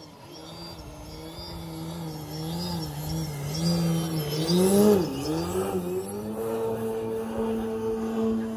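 Electric RC aerobatic plane's motor and propeller running, its pitch wavering with the throttle as it grows louder. About five seconds in it is at its loudest, with a quick rise and fall in pitch, then it holds a steady higher note.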